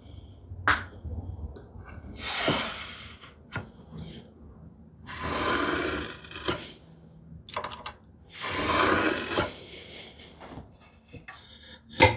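Wood rubbing and scraping in three strokes of about a second each, with a few light knocks of wood on the workbench in between.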